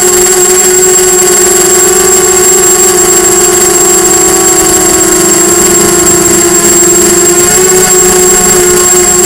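Diatone Blade 250 quadcopter's four brushless motors and propellers in flight, heard from the camera mounted on the craft: a loud, steady buzzing whine whose pitch wavers slightly as the throttle changes, with a thin constant high tone above it.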